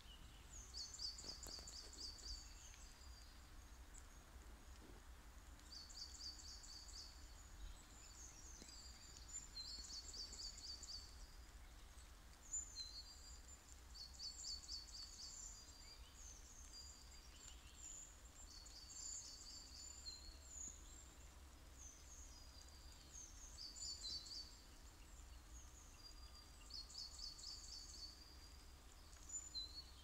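Songbirds singing in a quiet wood: a high phrase of quick repeated notes, about a second long, comes back every four seconds or so, with scattered chirps between. A faint low rumble runs underneath.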